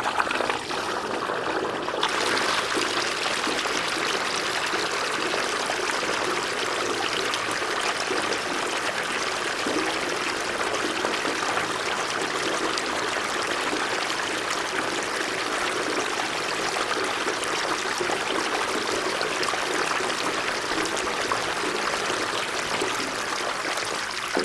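Water pouring and splashing steadily, with a brighter, hissier spray joining about two seconds in.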